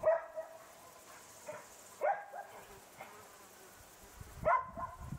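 A dog barking a few short times, about two seconds apart, with quiet between.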